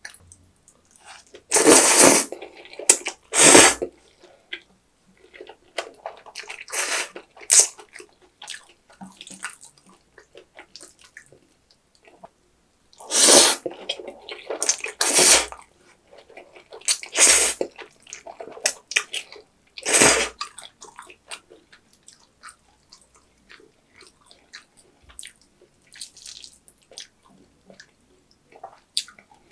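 A person slurping sauce-coated jjajang ramen noodles in loud, wet bursts, about seven times, with faint chewing and smacking in between.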